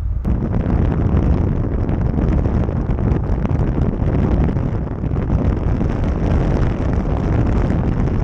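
Loud wind buffeting the microphone: a dense, rumbling rush with a heavy low end that starts and stops abruptly.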